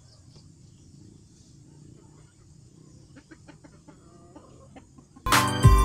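Silkie chickens clucking softly, with a quick run of short clucks past the middle. Near the end, loud guitar music starts abruptly.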